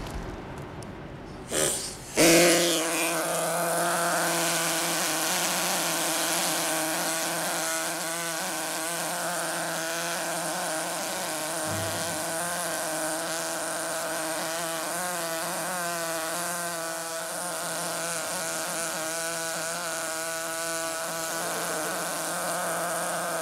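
A small power tool running with a steady buzzing hum that starts abruptly about two seconds in, after a few short knocks. Its pitch wavers now and then.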